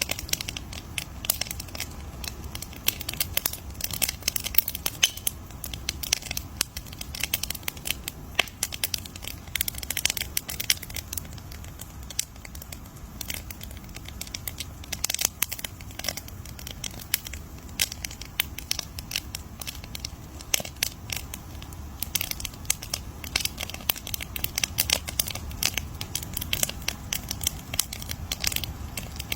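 Wood campfire crackling and popping: dense, irregular sharp snaps over a low steady rumble of the flames.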